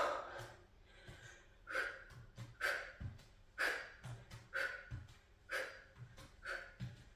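A woman breathing hard from exertion, with sharp exhales about once a second as she works through kickboxing knee and rear-kick moves. A few soft thuds of bare feet tapping a wooden floor come in between.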